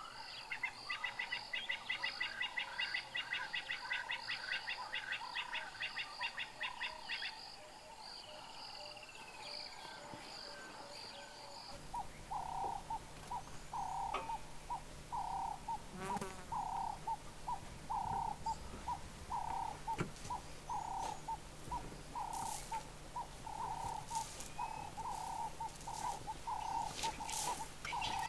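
Bush ambience of bird calls. At first a rapid, high trilling chorus runs for about seven seconds. Later a mid-pitched call repeats a little more than once a second over a low steady hum, with a few sharp clicks near the end.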